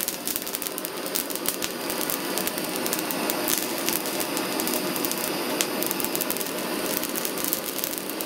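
Gas plumber's blowtorch burning steadily, a continuous hiss of the flame, with frequent small crackles throughout as the flame is played over a red pepper's skin to char it.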